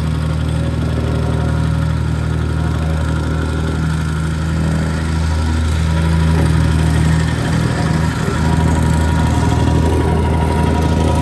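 Petrol vibrating plate compactor running steadily, its engine droning as the plate compacts a freshly laid lean-mix base.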